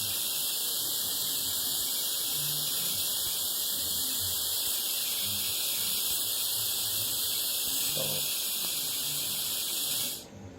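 TIG welding arc hissing steadily, cutting off abruptly near the end.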